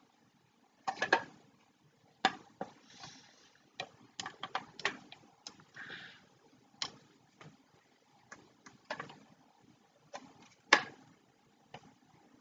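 Hard plastic parts of a model engine kit being handled and fitted together: irregular clicks and knocks as the pieces tap against each other and the table, with a couple of short scrapes; the loudest knock comes near the end.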